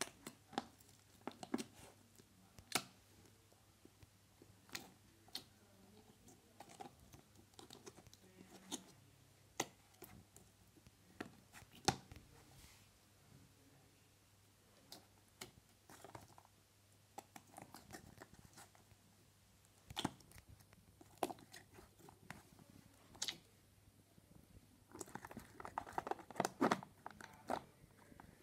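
Small plastic slime tubs being handled: scattered faint clicks and taps of the containers, with a busier run of crackly handling near the end. A low hum sits underneath.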